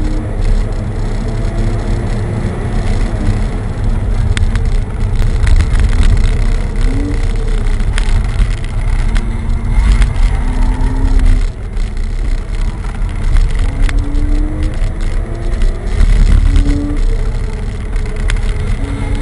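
Porsche flat-six engine heard from inside the cabin under hard driving, over heavy road and wind rumble. The engine note climbs several times and falls back between, with a brief lift off the throttle about two-thirds of the way through and a few sharp knocks.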